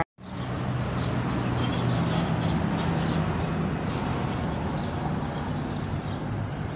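Street traffic: a car's engine running as it drives along the road, over a steady background of street noise. The sound drops out for a moment at the very start.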